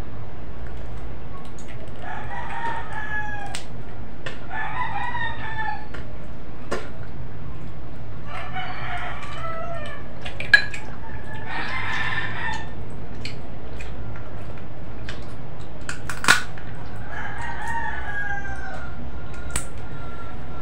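Roosters crowing repeatedly, about five drawn-out calls of a second or two each, over a steady low hum. Two sharp clicks stand out, about ten and sixteen seconds in.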